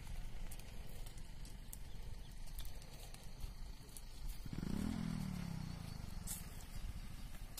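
A vehicle engine runs with a low, steady rumble. About four and a half seconds in, a louder drone starts suddenly and falls in pitch over a second or so.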